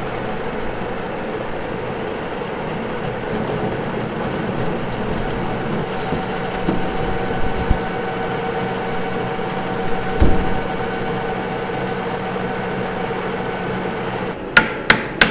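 Metal lathe turning an automatic transmission's torque converter while the cutting tool cuts it open: a steady machining hum with a few held tones. Several sharp knocks near the end.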